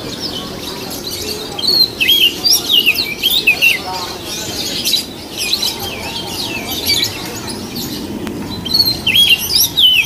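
Oriental magpie-robin (kacer) singing: two bursts of quick, varied whistled phrases, the first about two seconds in and the second near the end, over a steady low background murmur.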